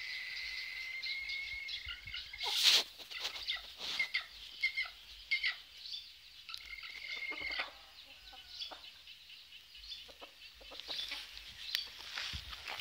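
Hybrid red junglefowl rooster and chickens clucking with many short calls, with one loud sharp sound about two and a half seconds in. A steady high insect drone runs under the first couple of seconds and returns briefly past the middle.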